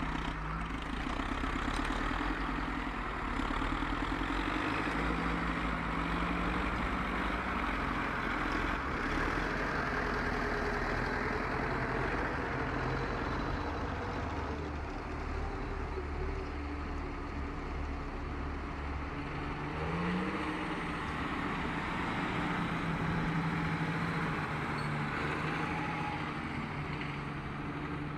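Farm tractor diesel engines running under load as they pull trailers through deep slush, a continuous steady drone with the engine note shifting now and then.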